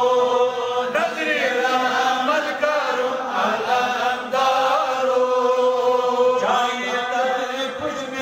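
Devotional Islamic chanting: voices holding long, sustained notes that now and then slide to a new pitch.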